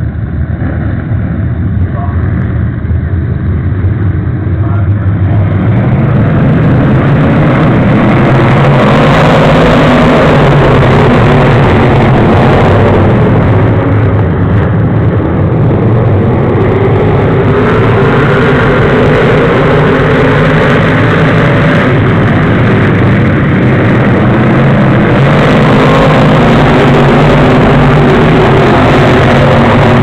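Pro Stock race cars' engines running hard around the track, loud and getting louder about six seconds in as the pack comes near, with several engines' pitches rising and falling as the cars pass.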